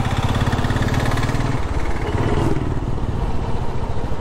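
Royal Enfield Classic's single-cylinder engine running under way, its exhaust beat thumping steadily; the beat softens about a second and a half in.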